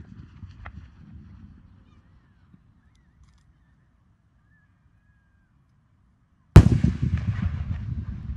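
Firework shell bursting with one sudden loud bang about six and a half seconds in, followed by crackling and a rumbling decay. Before it, the low rumble of an earlier burst fades out and leaves a quiet gap.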